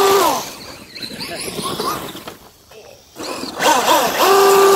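Electric RC car motors whining: the pitch rises and falls at the start, there is a quieter stretch in the middle, and from about four seconds in a steady whine that slowly fades.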